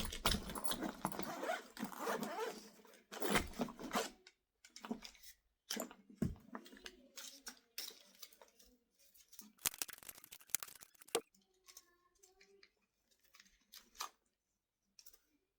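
Stiff plastic tool packaging being handled and pried at, crinkling and crunching steadily for about four seconds, then in shorter rustles with sharp clicks and snaps.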